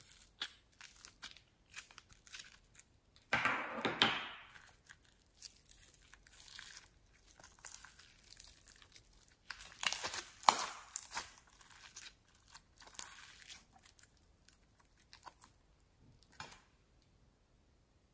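Foam-bead slime (floam) being pried out of a plastic butterfly-shaped tray and squeezed between the fingers, giving an irregular crackling and tearing sound. The loudest crackling comes in dense bursts about three seconds in and again about ten seconds in, and it stops a little before the end.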